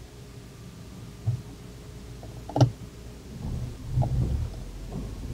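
Small car's engine running low inside the cabin, with a sharp click about two and a half seconds in. Then the engine and road rumble grow as the car pulls away from a stop.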